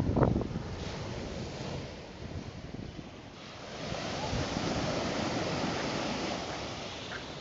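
Sea waves washing onto the beach, one wave's hiss swelling a little before halfway and fading again. Wind buffets the microphone at the start.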